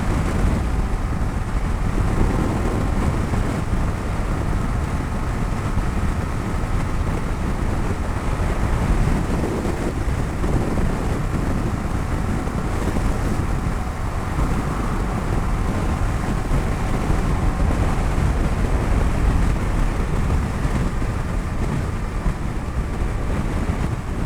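Bajaj Dominar 250's single-cylinder engine running steadily at highway cruising speed, mixed with heavy wind rush on the microphone.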